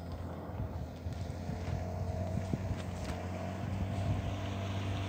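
A steady low engine hum, even and unbroken, with a faint higher tone over it.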